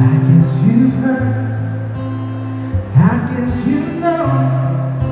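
Acoustic guitar strummed with a singing voice over it.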